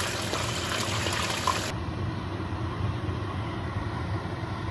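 Chicken drumsticks sizzling in hot oil in a frying pan, a steady hiss with fine crackles. About two seconds in it cuts to a duller, steady low hum.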